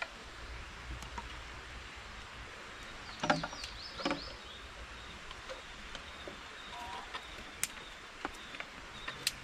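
Sharp snaps and crackles of dry twigs and leaves being handled while building a small campfire, two louder ones about three and four seconds in, over a steady hiss.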